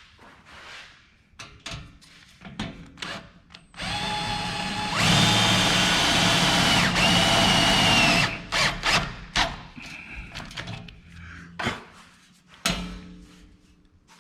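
Power drill with a socket driving a self-drilling, self-tapping screw into steel square tubing: the motor starts about four seconds in, runs at full speed for about three seconds with a brief dip partway, and stops near eight seconds. Scattered clicks and knocks of handling before and after.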